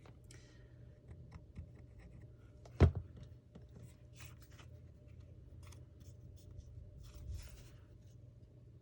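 Paper-crafting handling sounds: soft rustles, scrapes and light clicks of paper and craft tools being handled on a table, with one sharp knock about three seconds in.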